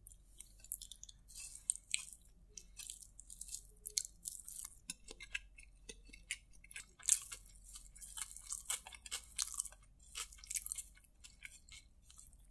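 Close-miked mouth sounds of a man chewing soft, oily chopped paratha kottu: wet smacks and clicks of the lips and tongue coming irregularly several times a second.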